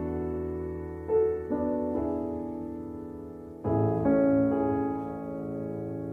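Background music: slow piano, a chord or a few notes struck at a time and left to ring out, with a fuller chord about two-thirds of the way through.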